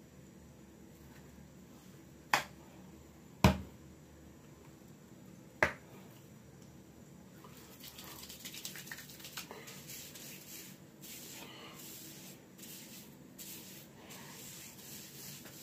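Three sharp clicks, the second and third about one and two seconds after the first. From about halfway in, the soft, uneven scratchy rustle of hands rubbing over short hair.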